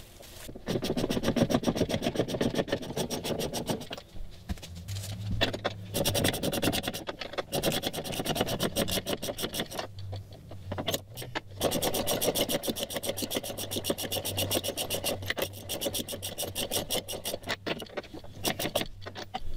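Socket ratchet wrench clicking rapidly in long runs as the outboard's stainless transom mounting bolts are run down snug, pausing briefly twice between strokes.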